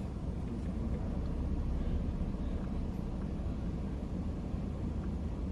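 A car engine idling steadily, a low, even rumble heard from inside the car.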